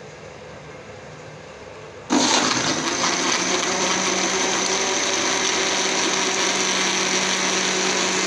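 Electric mixer-grinder blender switched on about two seconds in and running steadily, blending milk, whipped coffee and ice cubes into cold coffee.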